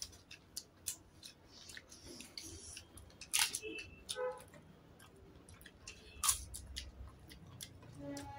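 Eating at a table: scattered clicks and taps of fingers and a spoon on plates, with soft chewing, two sharper clicks standing out. Background music comes in near the end.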